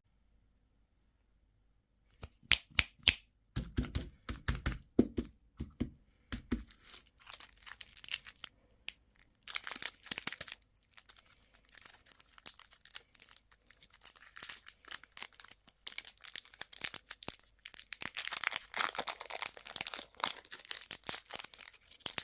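Candy or toy packaging being crinkled and torn open by hand. Sharp clicks and crackles start about two seconds in, mixed with a few dull knocks for the next few seconds, then give way to dense, uneven crinkling.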